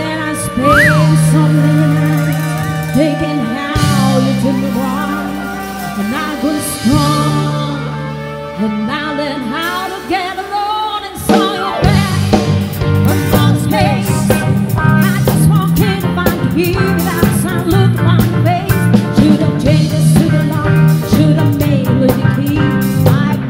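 Live band music with singing: keyboard, guitar and drums behind a lead vocal. The first half moves over long held bass notes; about halfway the full band comes in louder with a steady beat.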